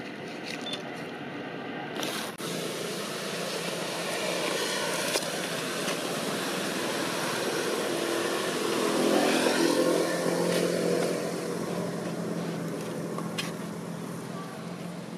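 A motor vehicle's engine running over a steady hum of traffic. It grows louder to a peak about nine to ten seconds in, then fades away.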